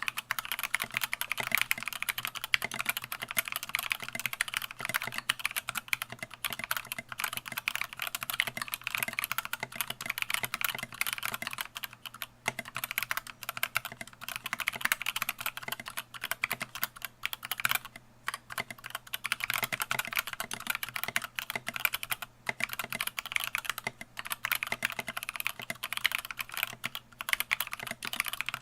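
Fast, continuous typing on a custom 60% mechanical keyboard (DZ60) with lubed Gateron Yellow linear switches and SA-profile keycaps in an acrylic case: a dense stream of key clacks, with a couple of brief pauses.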